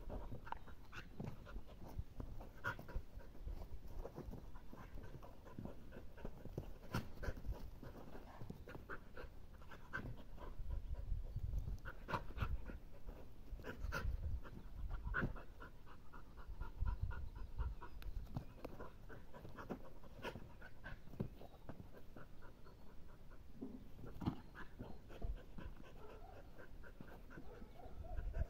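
A mixed-breed dog panting hard in quick, even runs of breaths, over a low rumble.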